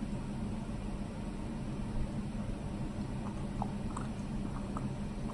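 Steady low room hum, with a few faint light clicks from a small plastic tube being handled, about three to five seconds in.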